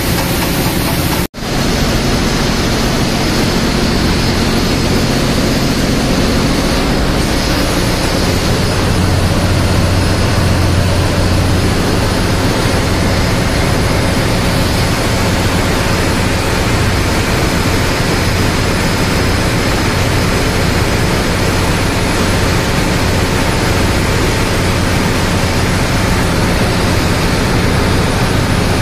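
Loud, steady ship's engine-room machinery noise, a dense even rush over a deep low hum, briefly cutting out once about a second in.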